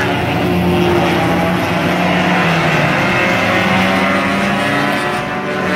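Stock car race engines from Bomber-class cars running at speed on a short oval, a loud steady drone whose pitch shifts slightly as the cars circle.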